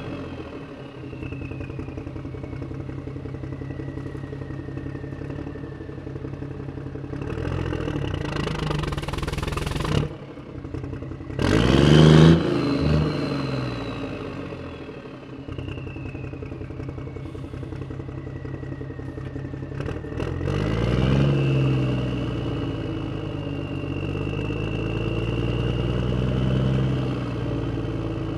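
Motor vehicle engine running steadily, with a slowly gliding whine above it and louder swells about twelve seconds in and again about twenty-one seconds in as vehicles rev or pass.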